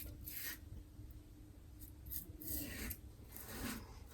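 Carve Christopher Bradley safety razor with a Gillette Ruby blade scraping through lathered stubble in several short, raspy strokes.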